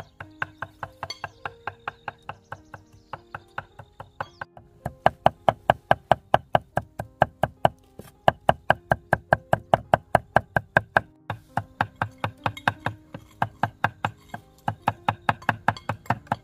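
A large knife chopping fast on a round wooden chopping board, mincing, about five strokes a second, with two short breaks, over background music with held notes.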